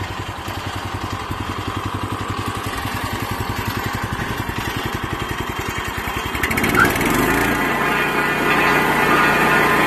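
Timbery M100 band sawmill's 9 hp Subaru single-cylinder engine idling with an even chugging beat, then speeding up to a louder, steadier run about seven seconds in as the throttle is opened.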